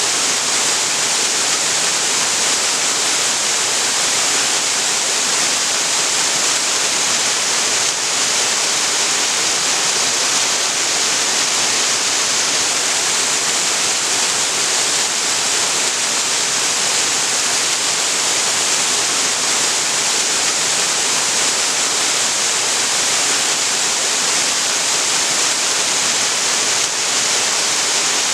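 Waterfall on a creek: a steady, even rush of falling water that does not change.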